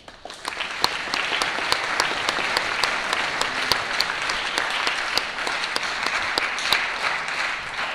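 Audience applauding: many hands clapping in a dense patter, with a few sharp, close claps standing out. It swells within the first second and begins to thin out near the end.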